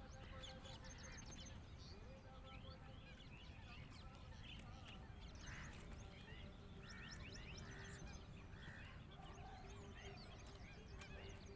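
Faint lakeside birdsong: a scatter of short chirps from several birds, with a few stronger calls in the second half, over a low rumble.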